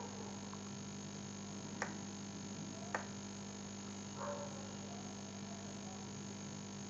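Steady low electrical mains hum in the recording, with two short mouse clicks about a second apart.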